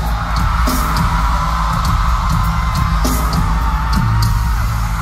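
Live pop music played loud through an arena sound system, with heavy bass and a long held tone, over a crowd of fans yelling and screaming.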